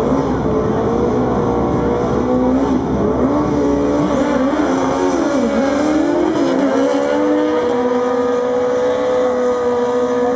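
Two drag-racing sport motorcycles launching and accelerating hard down the strip, their engine pitch climbing and dropping again and again as they shift up through the gears. About seven seconds in, a steady engine drone takes over.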